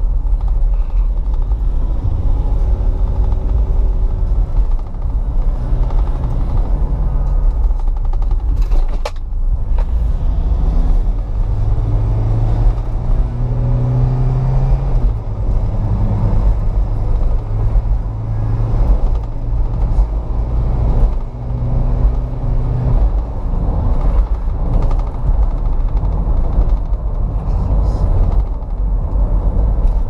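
Remapped Toyota Innova's engine and road noise heard from inside the cabin while driving: a steady low rumble with the engine note rising and falling as the car accelerates and eases off.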